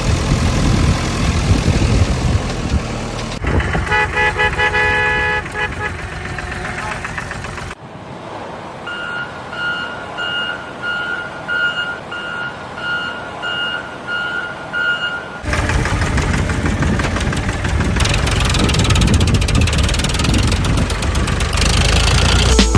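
Truck sounds: an engine running, then a horn sounding in short toots, then a reversing alarm beeping steadily about every two-thirds of a second, about ten beeps, then the engine running again.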